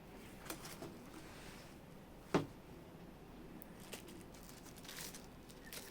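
Faint rustling and small clicks from a zippered drone carry bag being opened out and its contents handled, with one sharp knock about two and a half seconds in.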